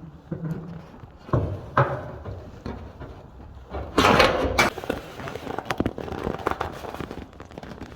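Knocks, clicks and rattles against a garage door as it is worked at to reach its emergency release cable, with a louder half-second clatter about four seconds in.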